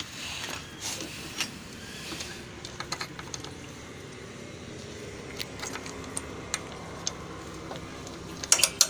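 Light, irregular metallic clicks and clinks of a long socket wrench turning out a bolt on a motorcycle engine's clutch-side cover, with a quick cluster of sharper clicks near the end.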